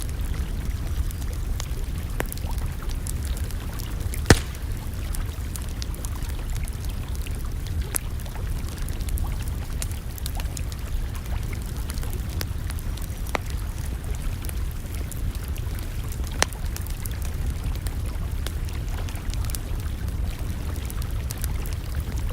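Campfire crackling, with scattered sharp pops (the loudest about four seconds in and again near sixteen seconds) over a steady low rumble.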